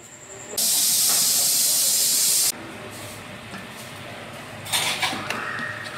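A loud, steady hiss that starts abruptly about half a second in and cuts off about two seconds later, over a cooking pot. Near the end there is a short clatter, then water starts to pour with a rising tone as a container fills.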